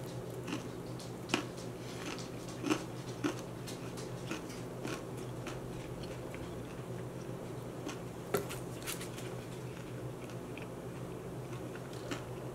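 Close-up biting and chewing of a fried pastry turnover, with sharp crunches at irregular intervals, the strongest a little over a second in, near three seconds and a little past eight seconds, over a steady low hum.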